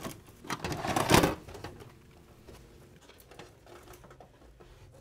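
A loud burst of dense clicking and clattering in the first second or so, then sparse, fainter clicks and crackle that fade away.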